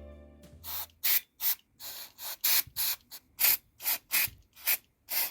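Music fading out in the first second, then about a dozen short hissing spray bursts in quick, uneven succession.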